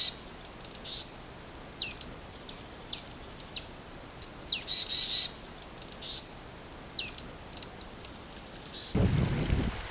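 Wild songbirds chirping: a run of quick, high, down-slurred notes with gaps between them. About nine seconds in, the rush of flowing river water starts.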